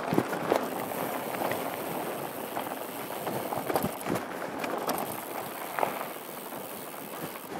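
Mountain bike rolling fast down rocky gravel singletrack: a steady crunch of tyres on loose stones, with scattered sharp knocks and rattles as the bike hits rocks, heard through a helmet-mounted GoPro.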